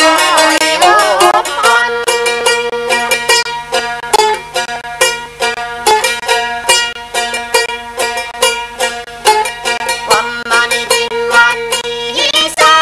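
Northern Thai folk song: a sung line near the start gives way to an instrumental passage of quickly plucked lute notes over a steady drone. The singing comes back near the end.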